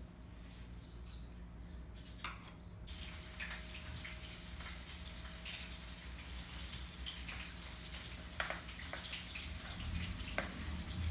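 Water running from a kitchen tap into a sink, starting about three seconds in, with scattered clicks and knocks of things handled under it. A few bird chirps come before the water starts.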